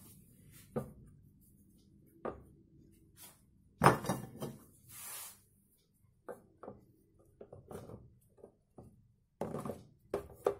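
Frozen chebureki being set down one by one in an oiled metal baking tray: scattered knocks and light taps, the loudest about four seconds in and another cluster near the end, with a brief rustle around five seconds in. The oil is still cold, so nothing sizzles.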